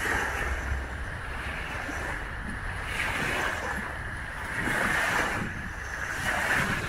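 Small wind-driven waves lapping and breaking on a sandy shore, the wash swelling and fading about every one to two seconds. Wind rumbles on the microphone about the first second.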